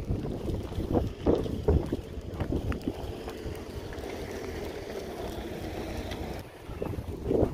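Wind buffeting the microphone, a low rumble with a few knocks in the first seconds and a steadier hum in the middle that drops away about six and a half seconds in.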